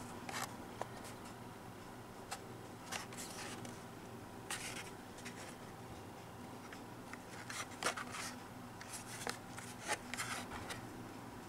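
Faint, scattered clicks and rubbing of plastic blister packs on cardboard backing as carded Hot Wheels die-cast cars are handled and turned over in the hands, over a faint steady hum.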